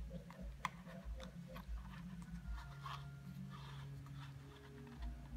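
Faint paper handling: a few light clicks, then a soft rustle and scrape about three seconds in as the cardboard pull-tab of a children's picture book is slid out.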